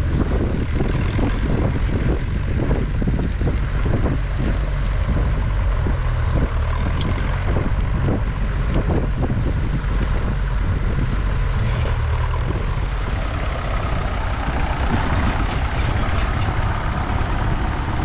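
Grey Ferguson tractor engine running steadily under load as it pulls a mounted plough.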